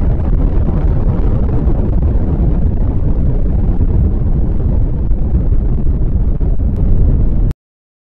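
Atomic bomb explosion sound effect in its aftermath: a loud, deep, continuous rumble whose higher hiss slowly fades away. It cuts off abruptly about seven and a half seconds in.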